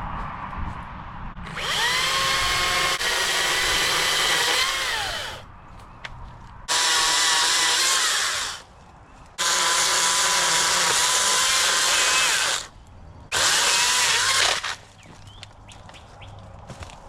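Chainsaw running up to full speed in four bursts of a few seconds each, cutting into a rain-soaked downed tree limb, its pitch sagging under load and dropping back to a low idle between bursts.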